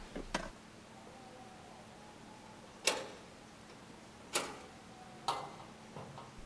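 A few sharp, separate metallic clicks and knocks, four in all, against a faint background. The last two are the latch and small side door of a metal compound gate being unfastened and swung open.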